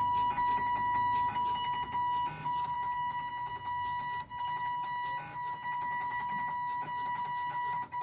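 Stepper motors of a homemade Arduino plotter, driven by an L293D motor driver, whining at a steady high pitch as they move the pen. There are short breaks about two and a half seconds and five seconds in where the motion changes, and faint clicks throughout.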